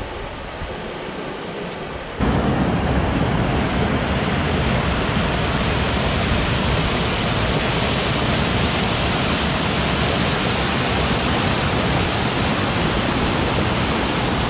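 River rapid rushing loudly and steadily, heavy white water pouring down the riverbed. It starts abruptly about two seconds in, after a quieter stretch of water and wind noise.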